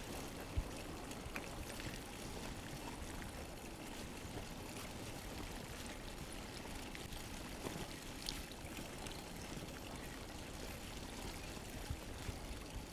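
Steady wash of shallow water over a tidal flat, with a few faint clicks.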